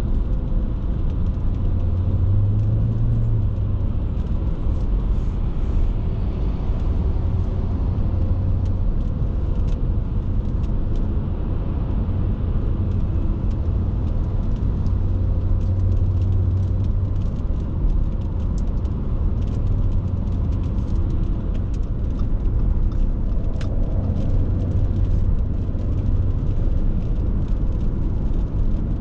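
Cabin noise of an Audi A6 C6 with a 2.4-litre V6 petrol engine cruising on a motorway: a steady low drone of engine and tyre rumble heard from inside the car.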